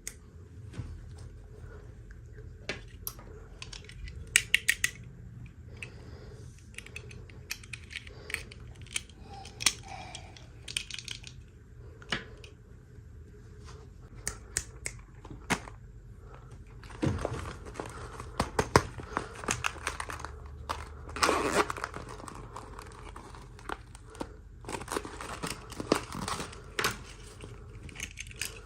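Toy packaging being handled and opened by hand: plastic and paper crinkling and tearing, with scattered clicks and taps, heaviest in two stretches in the second half.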